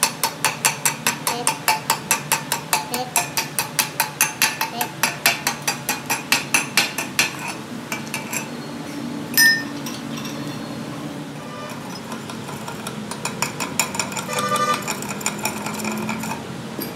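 Chipping hammer striking a fresh weld bead on a steel axle housing to knock off the slag: a quick, even run of metallic clinks, about four or five a second, for some seven seconds, then one sharper clink, and after a pause a lighter, faster run of taps.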